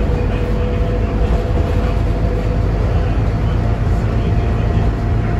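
Scania K280UB city bus heard from inside the cabin while moving: its rear-mounted diesel engine and drivetrain running steadily under a deep rumble of road noise. A thin steady whine rides on top, part of it fading out about halfway through.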